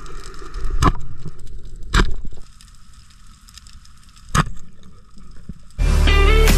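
Three sharp underwater snaps from a speargun firing, the first two about a second apart and the third two seconds later, over a steady underwater hiss. Guitar music comes in near the end.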